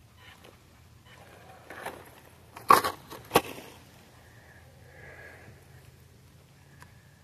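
Crunching and crackling noise with two sharp cracks about three seconds in, over a faint low hum.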